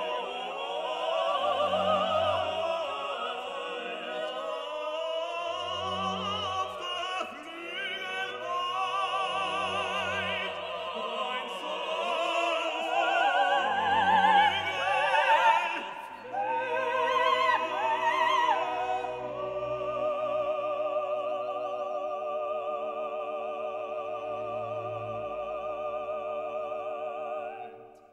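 Background music: operatic singing with orchestra, the voice wavering with heavy vibrato, giving way about halfway through to long held notes that fade out at the end.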